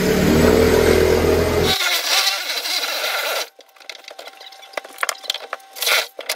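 A power tool running loudly for about three and a half seconds, then cutting off suddenly, followed by scattered knocks and clatter.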